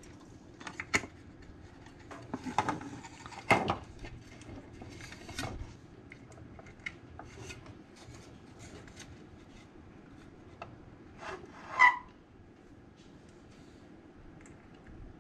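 Hands handling a metal RF wattmeter case while fitting a toggle switch through its side: rubbing and scattered light clicks and knocks, with the loudest knock about twelve seconds in.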